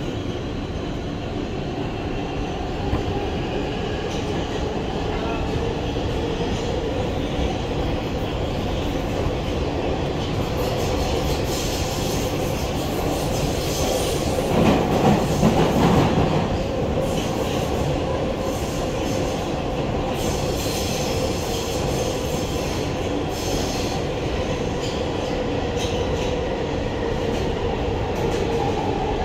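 Inside an R160B Siemens subway car running at speed: steady rumble and rattle of wheels on rail, with a held tone over it. About halfway through there is a louder burst of clatter lasting a couple of seconds.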